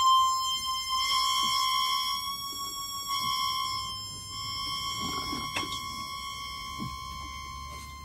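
A harmonica holding one high reedy note, wavering slightly in pitch now and then, until it stops near the end, over a low rumble.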